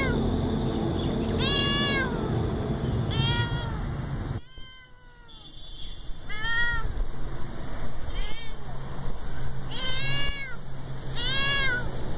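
A young cat meowing over and over, about seven meows roughly one every couple of seconds, each rising then falling in pitch.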